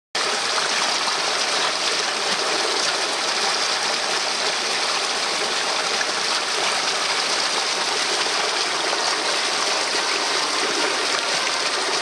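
Shallow mountain headwater stream running over rocks and stones: a steady, even rush of water.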